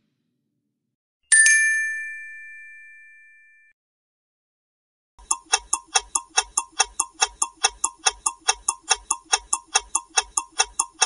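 Quiz timer sound effects. About a second in, a single bell-like ding rings out and fades over two seconds as one countdown ends. From about five seconds in, a fast clock-ticking effect runs at about four or five ticks a second, keeping time for a new countdown.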